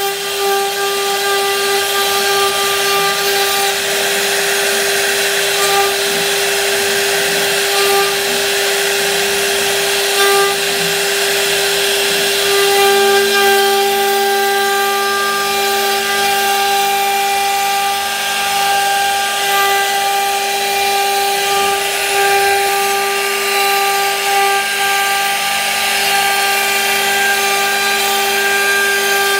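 CNC router spindle carving a relief pattern into a wooden board: a steady, high whine from the spindle over the noise of the bit cutting through the wood.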